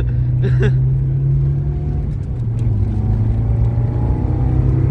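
Toyota AE86 engine running under way, heard from inside the cabin as a steady low drone. About two seconds in it dips briefly, then pulls again with its pitch slowly rising.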